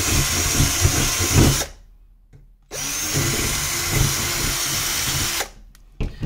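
Cordless drill boring out screw holes in a thin metal motherboard backplate to enlarge them. It runs in two goes: it stops about a second and a half in, starts again a second later, and stops for good about a second before the end.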